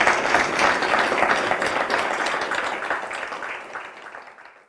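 Audience applauding, dense clapping that fades out near the end.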